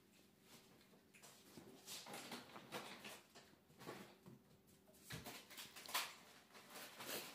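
Faint patter and scuffling of a puppy's paws on a hard vinyl plank floor, a string of short soft strokes, with a low thump about five seconds in.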